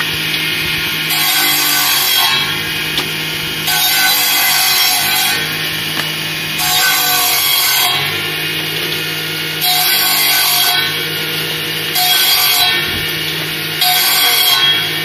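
Electric table circular saw running with a steady hum, its blade cutting a branch into firewood lengths again and again: about six cuts of a second or so each, every two to three seconds.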